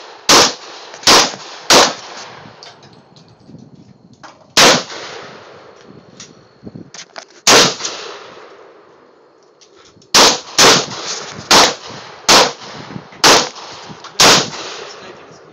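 Handgun shots at an outdoor range, about eleven sharp reports, each with a short echoing tail. Three come in quick succession at the start, then single shots, then a fast run of six from about ten seconds in. Lighter metallic clinks fall between the shots.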